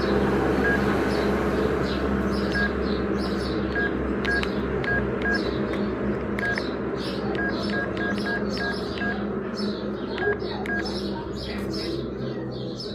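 LG MG185 mobile phone's keypad beeping as its keys are pressed: about fifteen short, identical high beeps at irregular spacing, over a steady background hum.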